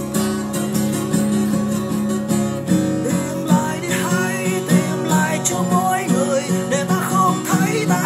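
Acoustic guitar playing picked and strummed chords, the pattern of notes getting busier about three seconds in.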